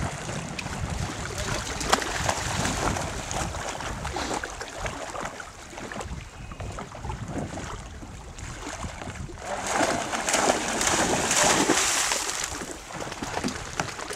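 Wind buffeting the microphone, with water splashing from a swimmer kicking in the lake. The rushing noise swells for a few seconds about ten seconds in.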